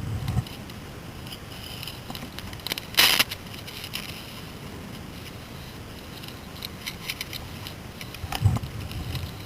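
Rustling and crackling of a player moving through brush, with a short, loud scrape about three seconds in and low knocks of handled gear near the start and end.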